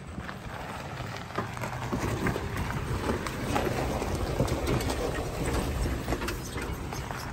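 Nissan Xterra's V6 engine running at low revs while it crawls over rock, its tyres crunching and grinding on loose stones with many scattered clicks and knocks.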